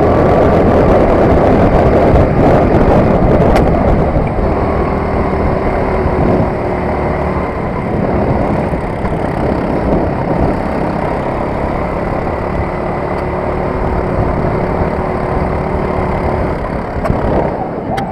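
Four-stroke engine of a Sodi RT8 rental kart, heard from on board, running hard during a lap; it drops a little in loudness about four seconds in and then holds steady.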